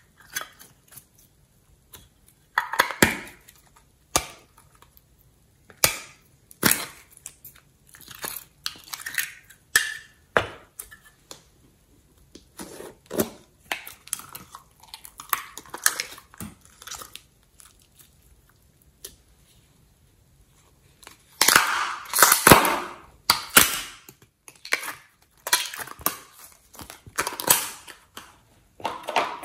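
Slime being squeezed out of small plastic tubs and pressed and kneaded into a bowl of mixed slime: irregular wet squishing and crackling with occasional clicks of the plastic containers, loudest in a longer run of squishing about three quarters of the way through.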